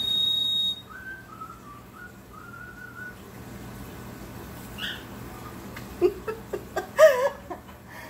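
Ceramic bird water whistle blown empty, its water poured out, giving a short, steady high tone with no warble for under a second. Near the end comes a burst of short, loud vocal sounds with bending pitch.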